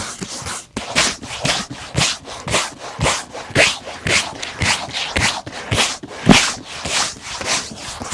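Brisk rubbing strokes over a leather boot during shoe shining, about two swishes a second, starting after a short pause near the start.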